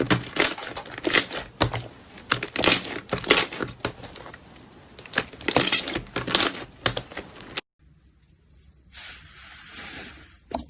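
Slime being squeezed and worked by hand, giving a dense, irregular string of crackling pops and clicks. It cuts off abruptly about three-quarters of the way through, followed by a brief rustling hiss and a single click near the end.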